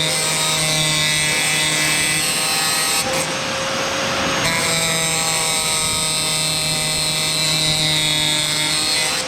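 Power tool drilling out pop rivets, running steadily with a pitched whine. About three seconds in it turns briefly rougher and noisier, then steadies again.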